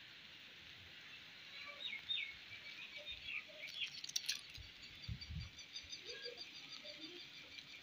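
Faint birdsong in trees: short chirps and calls, then a fast run of high repeated notes through the second half, over a soft steady hiss. A couple of low bumps come about five seconds in.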